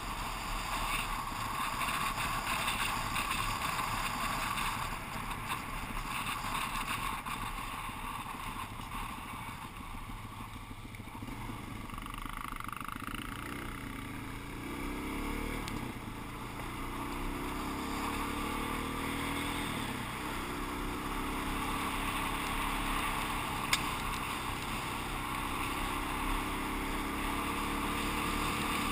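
Suzuki DR-Z400 single-cylinder four-stroke engine running while riding, its pitch rising and falling with throttle changes, mixed with wind noise on the camera microphone. One sharp click comes about two-thirds of the way through.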